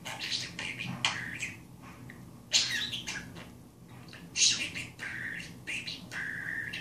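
Budgerigar chattering: a run of short warbles and chirps, with two loud, sharp squawks about two and a half and four and a half seconds in.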